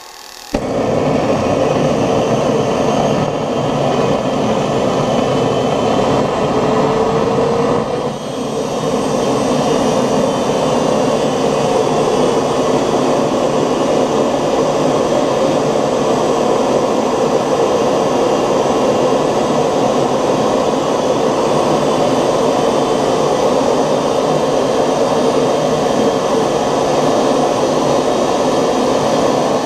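Home-made 3D-printed model gas turbine running, a loud steady rush with a whine, starting suddenly about half a second in and dipping briefly around eight seconds. It runs smoothly, with no sign of imbalance.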